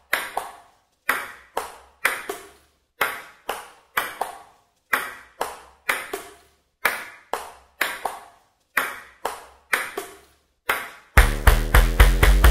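Intro-animation soundtrack: a run of short, sharp struck hits about two a second, each dying away quickly. About eleven seconds in, a loud electronic music track with heavy bass kicks in.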